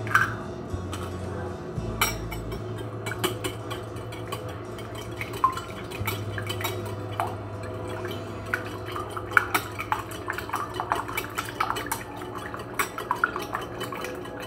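Metal fork beating raw eggs in a glass bowl: quick, irregular clinks of metal on glass with a wet slosh, faster and busier in the second half.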